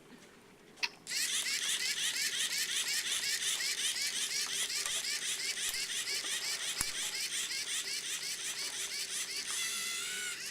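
Small competition robot's electric drive motors and gears whirring as it runs, a rapid, evenly pulsing high-pitched sound starting about a second in and shifting in pitch near the end.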